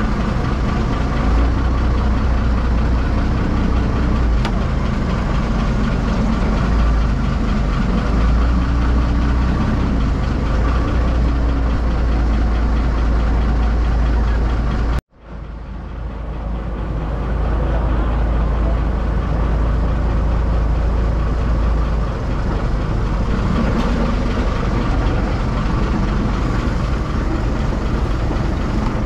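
Boat engine running steadily under way, a constant low rumble with water and wind noise over it. About halfway through the sound cuts out suddenly and fades back up within a second.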